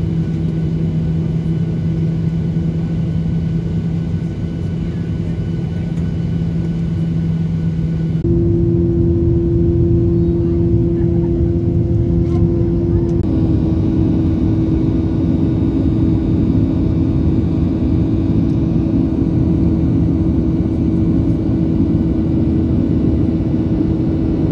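Airliner engine noise heard inside the cabin: a steady drone with a humming tone. It changes abruptly about eight seconds in to a louder, higher hum as the plane climbs after take-off, and shifts again a few seconds later.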